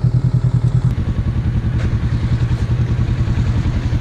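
Small boat's diesel engine running steadily with a fast, even thumping pulse; its note shifts slightly about a second in.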